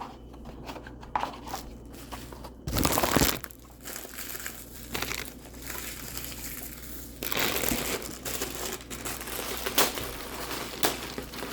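Packaging being handled and opened by hand during unboxing: irregular rustling and small clicks, with a loud noisy burst about three seconds in and another stretch a little after seven seconds.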